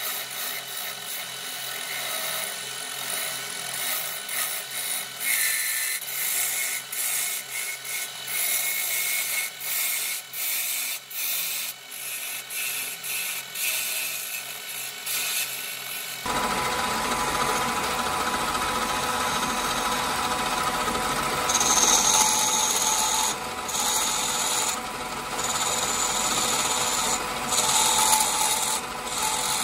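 A wood lathe spinning a small wooden cylinder while a hand-held turning tool cuts into it: a scraping, hissing cut broken by many short gaps. About halfway through the sound turns suddenly fuller, with a low hum added beneath the cutting.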